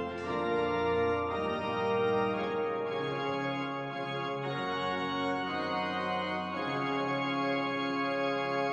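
Organ playing slow, sustained chords, changing every second or two, with a deep bass note held under most of it.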